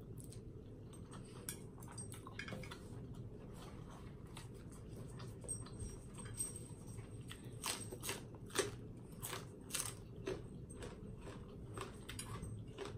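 Close-up eating sounds: chewing a mouthful of spicy instant noodles, then crisp crunching bites of a raw snow pea pod, with a run of sharp crunches in the second half.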